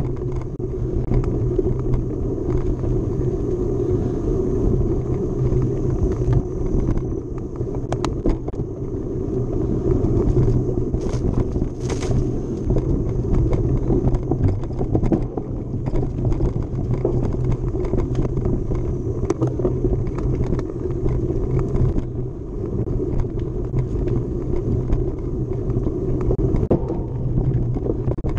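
Mountain bike being ridden hard along a dirt trail: a steady, loud rumble of tyres and rushing air, with scattered clicks and knocks from the bike rattling over rough ground.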